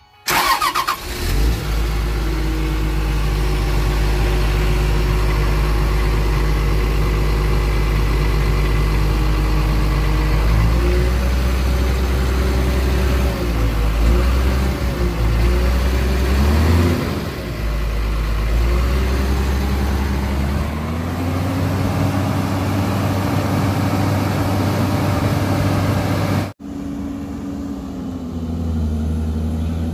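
Komatsu PC210-8 excavator's six-cylinder diesel engine running, heard close up at the hydraulic pump compartment; its speed sags and recovers several times in the middle, the machine having an engine-overload problem. About 26 s in the sound cuts abruptly to a quieter, steadier engine run.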